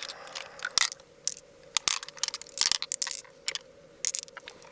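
Hard shell or pearls being handled during the opening of a freshwater mussel: irregular sharp clicks and short scrapes, with a faint steady hum underneath.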